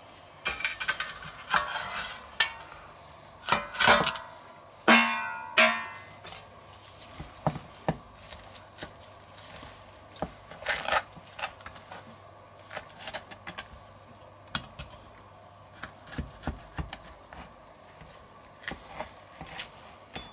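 Carving knife and fork clinking and scraping against a stainless steel platter, with several loud ringing metallic clanks in the first few seconds. Then sparser light clicks and scrapes as the knife cuts the porterhouse steak away along its T-bone on a wooden board.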